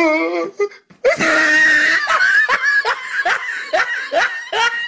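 A loud, shrill scream about a second in, followed by a string of short, high-pitched laughing cries, about three a second.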